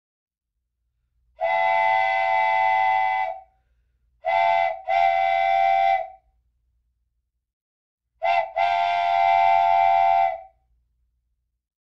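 Steam-train whistle sound effect blowing a steady chord in separate blasts: one long blast about a second and a half in, then a short-then-long pair around four seconds, and another short-then-long pair around eight seconds.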